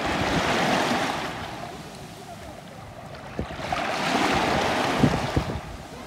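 Small sea waves washing in over shallow water at the shoreline, two surges about three seconds apart, with a few short clicks in between.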